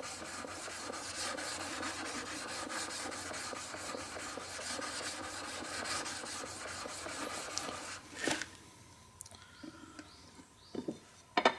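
Steel plane iron rubbed briskly back and forth on a coarse blue DMT diamond plate, flattening the blade's back, in quick, even scraping strokes. The strokes stop about eight seconds in, followed by a single sharp knock and a few faint small knocks.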